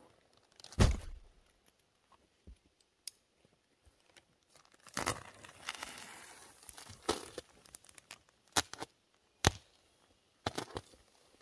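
Plastic wrapping on a compressed bag of pink fiberglass insulation batts being slit with a knife and torn open, with crinkling plastic. A heavy thump comes about a second in, and a few sharp cracks follow near the end.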